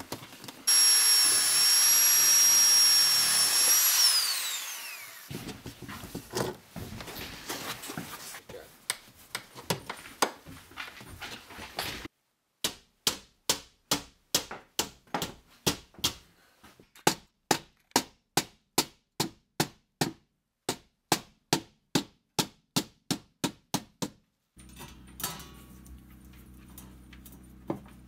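DeWalt corded drill running with a steady high whine for a few seconds, then spinning down as the trigger is released. Some handling noise follows, then a long run of evenly spaced sharp knocks, about two a second.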